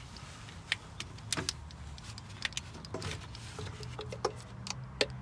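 Scattered sharp clicks and knocks of hands and tools working in a car's engine bay, shifting an air pipe out of the way, over a steady low hum.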